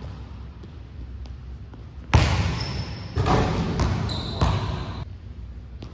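Basketball bouncing on a gym floor: four bounces, the first about two seconds in and the rest about half a second apart, each ringing out in the hall's echo.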